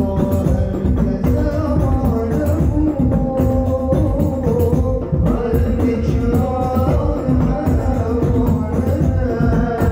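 Hadrah ensemble playing sholawat: rebana frame drums and hand-struck bass drums in a dense, steady rhythm, with voices chanting the Arabic devotional melody over them.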